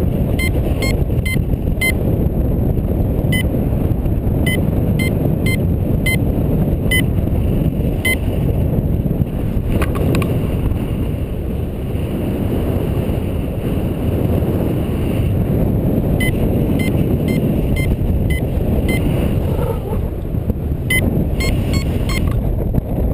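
Steady rush of airflow over a camera microphone in paraglider flight, with a variometer's short high beeps coming in runs, the sign that the glider is climbing in lift. The beeps stop for several seconds midway, then come back.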